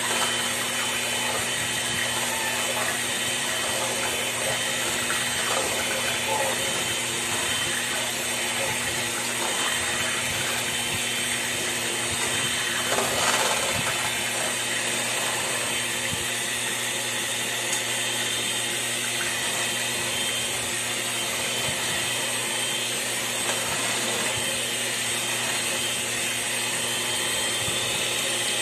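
Electric hand mixer running steadily, its beaters whirring through a thin custard mixture of eggs and milk in a stainless steel pot, with one brief louder moment about halfway through.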